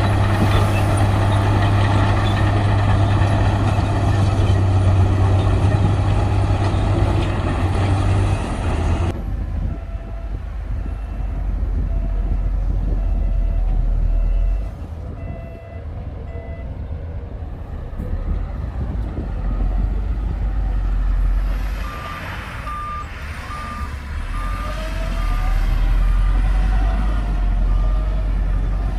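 Heavy diesel earthmoving machinery running, a bulldozer working with a dump truck. The deep steady engine drone changes abruptly about nine seconds in to a lower rumble. Over the rumble a reversing alarm beeps at an even pace, and a higher-pitched one takes over in the later part.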